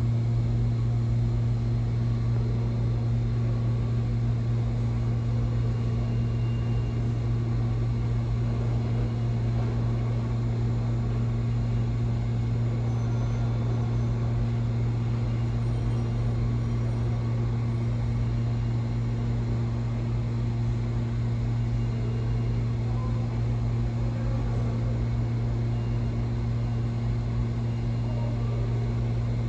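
Steady low machine hum in a subway station, holding one pitch with no train arriving or departing.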